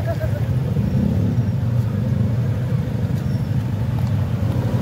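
Motor scooter engines idling close by, a steady low rumble.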